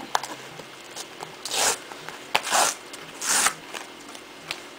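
The tear strip of a cardboard mailer envelope is pulled open by hand. It makes three short ripping tears about a second apart, with small clicks and rustles of the card between them.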